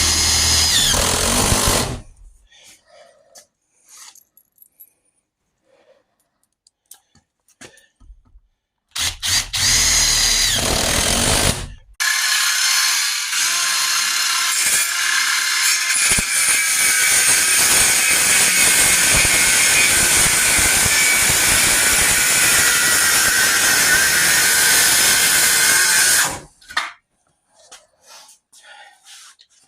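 Power drill running in three bursts: a short one at the start, another about nine seconds in, then a long run of about fourteen seconds with a steady whine, stopping suddenly.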